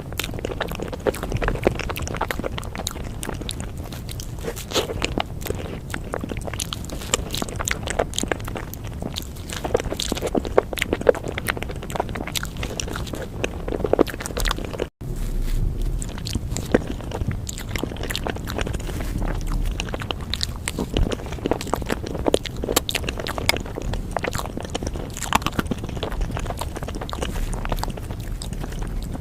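Close-miked ASMR eating of matcha desserts: a steady stream of biting, chewing and mouth clicks, with utensils scraping. The sound drops out for an instant about halfway through.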